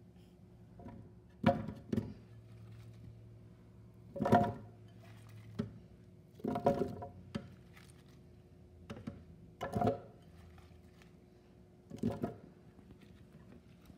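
Cucumber chunks being dropped by hand into a plastic blender jar: irregular knocks and thuds every second or two, over a faint steady hum.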